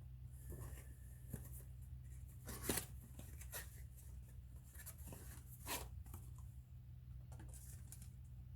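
Several short tearing and rustling strokes, the loudest about three seconds in, from towels being torn and handled to wipe up oil spilled when the filter came off. A low steady hum sits underneath.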